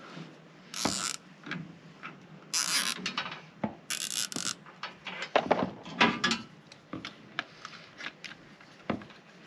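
Metal mounting hardware being handled and fitted through an access-point bracket by hand: scattered small clicks and rattles, with three short scraping swishes in the first half.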